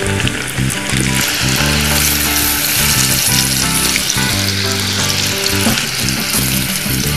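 Floured pieces of pejerrey (silverside) fish deep-frying in hot oil in a pot, a dense steady sizzle that gets louder about two seconds in.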